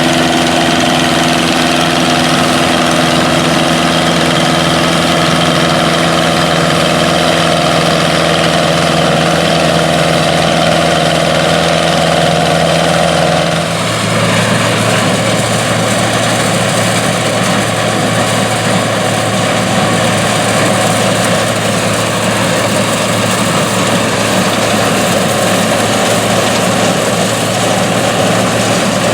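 Classic combine harvester running steadily at work in corn, a continuous engine drone. About halfway through it switches abruptly to a different machine's steady running.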